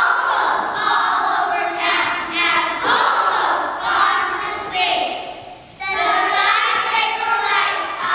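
Children's choir singing together, with a short break between phrases about five and a half seconds in.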